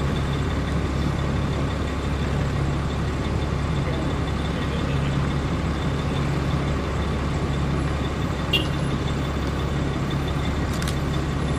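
Steady engine and tyre noise of police vehicles rolling slowly past in a line, with a low hum that comes and goes. A brief sharp click sounds about eight and a half seconds in.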